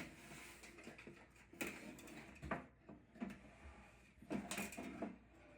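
Handling noise from a small vintage toy typewriter and its packaging: a few irregular knocks, clatters and scuffs as it is moved about.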